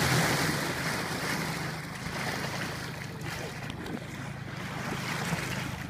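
Wind buffeting the microphone over choppy sea water around a small boat, with a low steady hum under it. The sound is loudest at the start and eases off after about two seconds.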